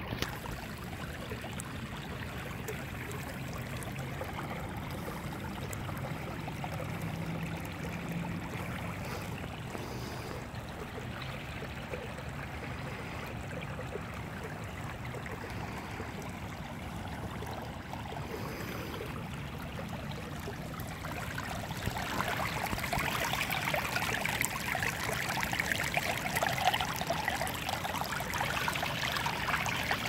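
Shallow water running over pavement and down a narrow grassy channel: a steady rush of flowing water that grows louder about two-thirds of the way through.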